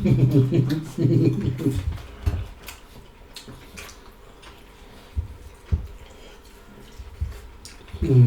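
A voice for the first two seconds, then wet mouth sounds of eating: soft chewing with scattered small clicks and smacks, and the voice again at the very end.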